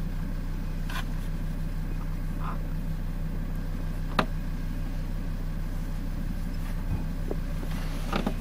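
Steady low hum of a vehicle engine idling, with a sharp click about four seconds in.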